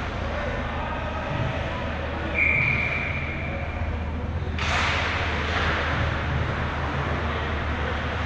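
Hockey referee's whistle, one steady high blast about two seconds long, over a steady low hum. Just after it stops, a sudden broad rush of noise rises and slowly fades.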